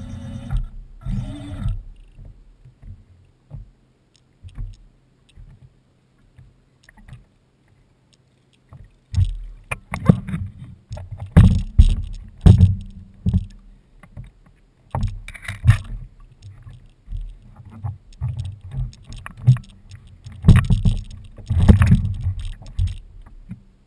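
Lake water lapping and slapping irregularly against the small hull of a drifting RC tug boat, with scattered knocks against the hull. A steady hum cuts off just after the start.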